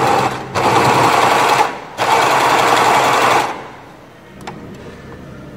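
Willpex WP653 household sewing machine running a straight stitch at a long stitch length, in three short runs with brief pauses between them, stopping about three and a half seconds in. A couple of faint clicks follow.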